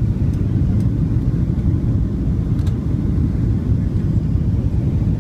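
Steady low rumble inside the cabin of a Boeing 737-700 on approach with flaps extended: its CFM56 jet engines and airflow over the wing.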